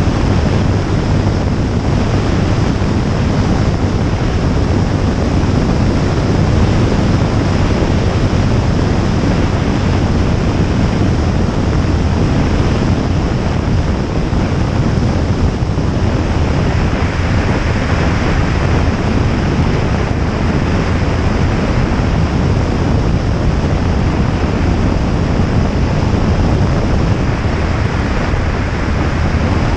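Jabiru J160's four-cylinder Jabiru 2200 engine and propeller running steadily in flight, under heavy wind rush on an exterior-mounted microphone. The noise turns a little brighter about halfway through.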